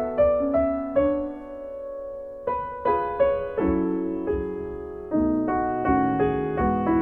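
Background piano music: unhurried single notes and chords, each struck and left to fade.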